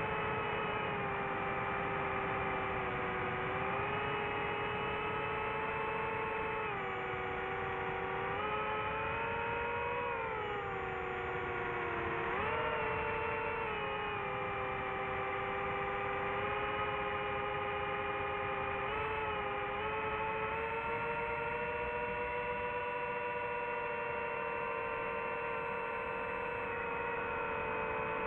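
DJI FPV drone's motors and propellers whining in flight: a steady stack of high tones that shifts up and down in pitch as the throttle changes, dipping and then rising sharply about twelve seconds in, over a low noisy rush of air.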